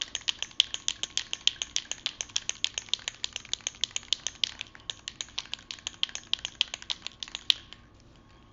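Aerosol spray-paint can being shaken, its mixing ball clacking inside in a fast, even rhythm of about six or seven knocks a second, then stopping shortly before the end.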